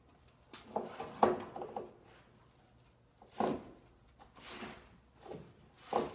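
Handling noises: a series of short knocks and scrapes as the bent PVC pipe and its heating tool are moved against a wooden worktable. The sharpest comes about a second in, with another near the middle.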